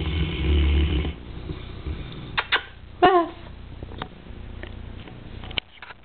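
A short-haired Newfoundland dog snoring in its sleep: one long, loud snore in the first second, then two short, sharp snorts a little after two and three seconds in, the second one falling in pitch.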